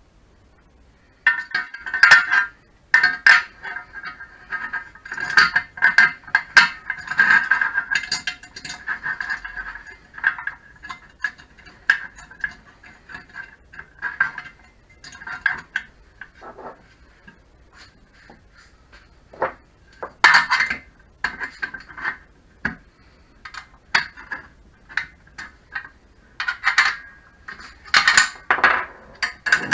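Metal parts of a Tacx Flux trainer's tension arm and frame clinking, scraping and knocking as the arm is fitted back in and worked by hand. The busiest, ringing stretch comes in the first ten seconds; after that come scattered sharp clinks, with several louder ones near the end.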